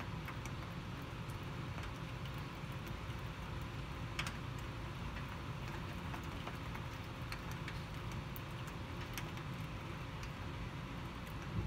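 Heavy rain falling steadily over a low rumble, with scattered sharp drips ticking close by; the sharpest comes about four seconds in.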